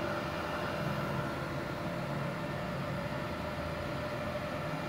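Steady hum of a switched-on MultiPro MIG-MMA/TIG 160 AS-MZ inverter welder idling, its cooling fan running with a faint steady whine.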